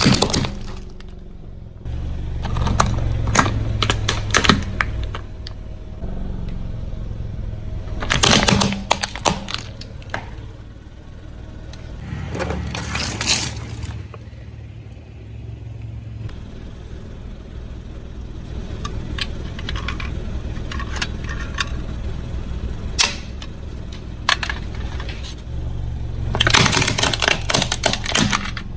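A car engine running at low speed as the tyres roll over objects and crush them, with clusters of crackling and crunching snaps several times, the loudest near the start and near the end.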